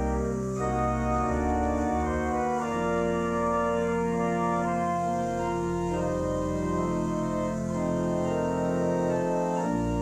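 Organ playing sustained chords that shift every few seconds, in a steady, unbroken organ tone.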